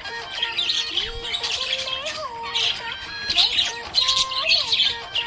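Budgerigars chirping and squawking in quick repeated bursts, over background music with a melody.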